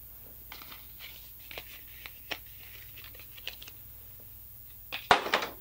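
Light crinkling and small clicks of cardboard perfume packaging being handled, then one short loud burst of noise about five seconds in.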